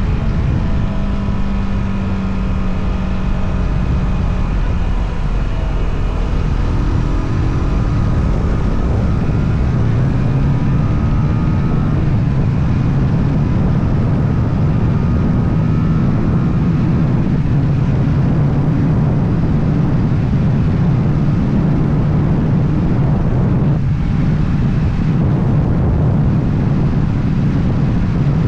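Motorcycle engine running under way, its pitch climbing over the first dozen seconds as it pulls up through the revs, with wind rushing over the microphone. There is a brief dip off the throttle near the end.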